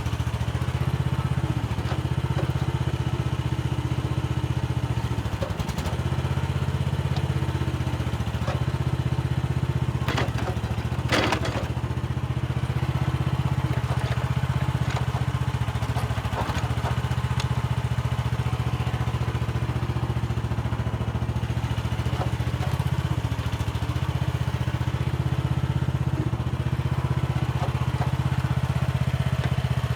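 Mini excavator engine running steadily while the machine works, its note dipping briefly a few times. A short clatter of knocks comes about ten to eleven seconds in.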